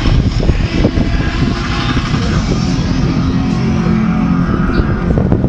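Steady low rumble of a motorboat's engine, with wind buffeting the microphone.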